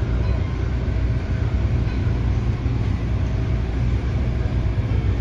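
MTR Adtranz-CAF electric multiple unit train running steadily, a continuous low rumble of wheels on rail with no change in pace.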